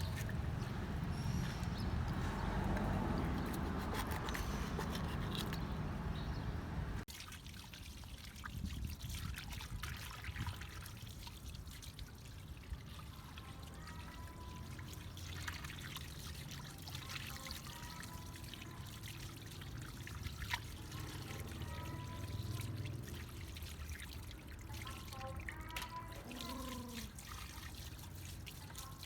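Water pouring and trickling for about the first seven seconds, then stopping abruptly. After that come quieter drips and small splashes, with scattered short chirps.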